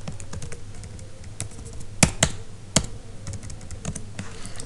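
Typing on a computer keyboard: a run of key clicks, with three louder clicks about two seconds in.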